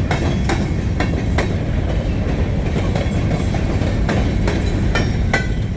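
Freight train rolling slowly: a deep, steady rumble with irregular clicks and clanks from wheels and cars, and a brief squeal near the end.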